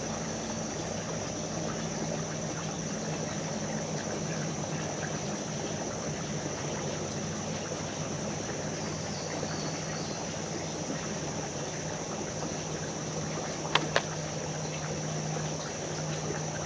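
Creek water running steadily, with two quick sharp clicks close together late on.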